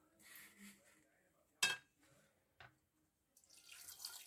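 A sharp knock about one and a half seconds in and a lighter one a second later. Then, near the end, water poured from a plastic jug splashing onto split fava beans in a pressure cooker, a steady rising hiss.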